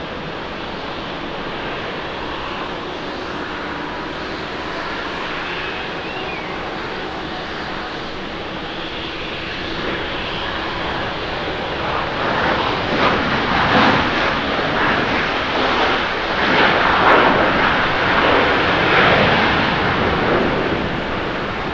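Jet engines of a Boeing 737-800 landing and rolling out on the runway: a steady jet roar that grows louder and uneven about twelve seconds in, then eases off near the end.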